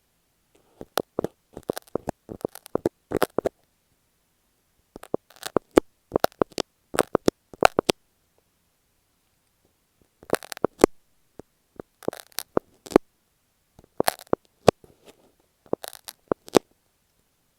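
Masking tape stuck on an earphone microphone being worked by fingers right at the mic: crackly clicks and rustles in four bursts of two to three seconds, with short silent pauses between.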